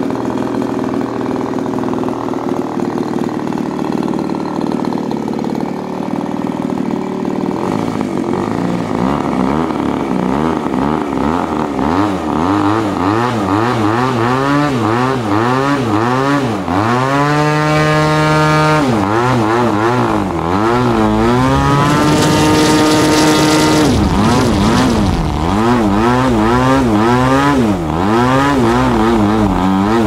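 DLE 20cc single-cylinder two-stroke gas engine on a model aircraft, running with its propeller. It idles steadily at first. After about eight seconds the throttle is worked up and down again and again, with two runs up to high, steady revs around the middle.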